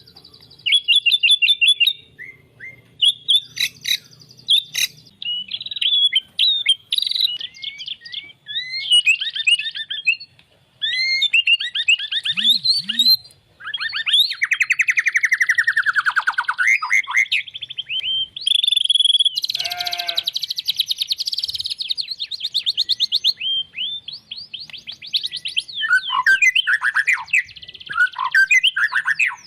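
White-rumped shama (murai batu) singing a long, varied song of fast trills, quick rising and falling whistles and chattering phrases, with a dense buzzy stretch about twenty seconds in.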